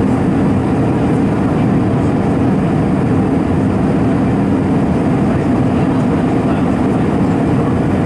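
Steady cabin noise of an Airbus A320 on approach, a low, even drone of its CFM56 engines and the airflow, heard from a window seat beside the wing.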